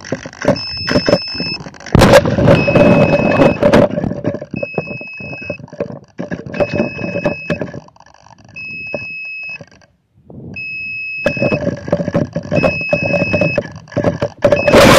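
Electronic beeper inside a rocket's payload bay in flight, sounding a steady two-tone beep, one second on and one second off. Under it runs rattling and rushing air noise that surges loud about two seconds in and again with a sharp, loud burst near the end.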